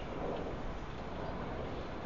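Steady city street ambience: an even wash of distant traffic noise with no distinct events.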